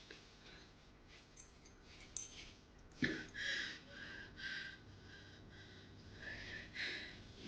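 A person breathing hard in short, repeated breaths, starting sharply about three seconds in.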